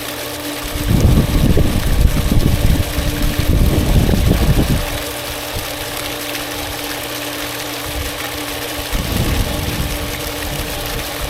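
Goulds 1/2 HP jet pump running steadily with a hum, newly primed and drawing lake water. A loud, rough low rumble covers it from about a second in until about five seconds in, and again briefly near the nine-second mark.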